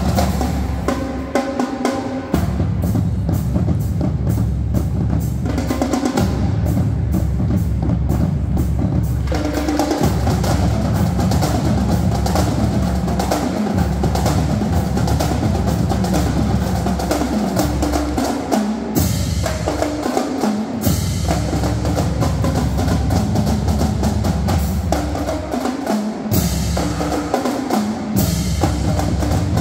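Marching drumline playing: snare drums, tenor quads and a line of tuned bass drums, with runs stepping down through the bass drums' pitches. Cymbals crash twice in the second half.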